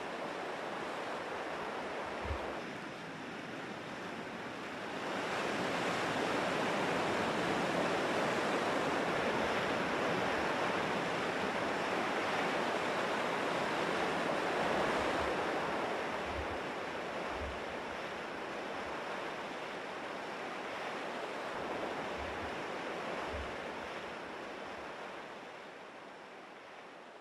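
Sea surf breaking and washing over a rocky shore: a steady rush of water that grows louder about five seconds in and fades away near the end, with a few soft low thumps.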